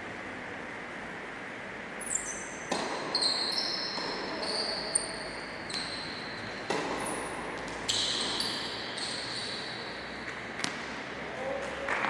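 Tennis rally in a large reverberant sports hall, starting about two seconds in: sharp racket strikes and ball bounces echoing off the walls, with short high shoe squeaks on the synthetic court floor between shots.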